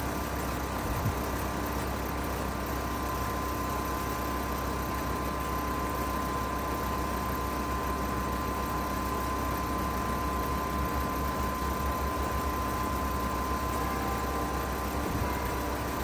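2014 Payne PH13 2.5-ton heat pump outdoor unit running steadily in heating mode: compressor hum and outdoor fan noise, with a steady whine over it.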